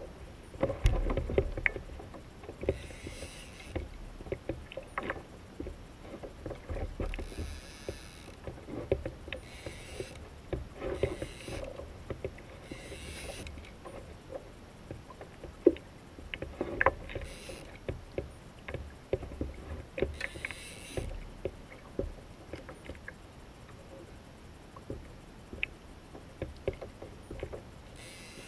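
Sea water lapping and splashing against a kayak hull and its outrigger floats, coming in washes every second or two, with many small clicks and knocks from a fishing rod and reel being handled.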